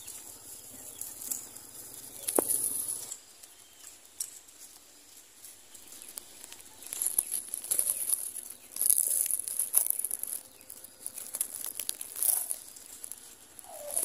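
Dry grass of a finch nest rustling and crackling close to the microphone, in uneven bursts as the nest material is handled and pushed aside.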